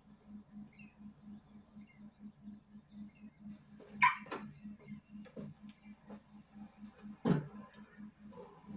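Small birds chirping in short, quickly repeated high trills over a low, steady pulse of about three to four beats a second, with a sharp knock about seven seconds in.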